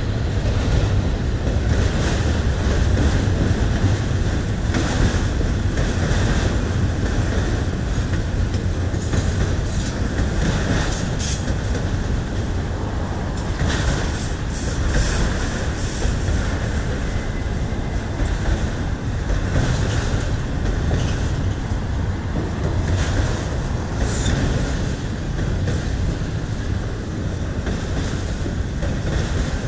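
Freight train's autorack cars rolling past: a steady rumble of steel wheels on the rails, with scattered clicks as the wheels pass over the track.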